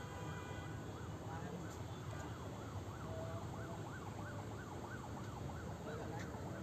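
A siren-like tone sweeping rapidly up and down, several sweeps a second, over a steady low rumble of background noise.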